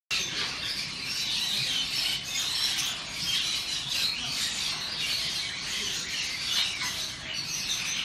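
Many small caged birds chirping at once, a steady high-pitched chorus with no single call standing out.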